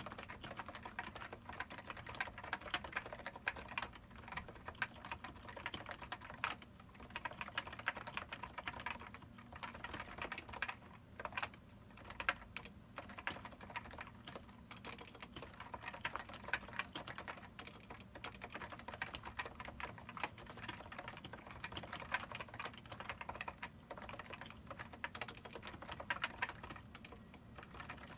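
Continuous typing on a Topre Type Heaven electro-capacitive keyboard with 45g domes and PBT dye-sub Hi-Pro keycaps: a rapid, steady stream of keystrokes with a few short pauses.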